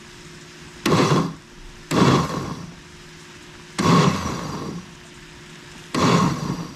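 Countertop Oster blender pulsed four times. Each pulse is a short burst of the motor spinning up and cutting off, chopping tomato salsa so the chiles are only coarsely broken rather than finely ground.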